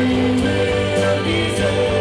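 Live band with a string orchestra playing, with a male voice singing at the front microphone.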